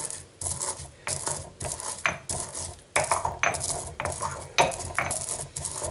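Pestle pounding and grinding coriander seeds in a heavy stone mortar: a string of short knocks with a gritty crunch, about three a second.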